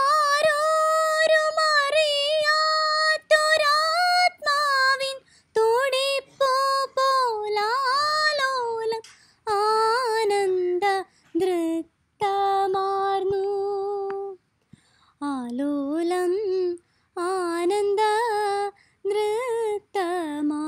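A woman singing solo, unaccompanied, in held notes and ornamented runs with a wavering pitch. The phrases are broken by short pauses. The melody sits higher for the first few seconds, then moves lower for the rest.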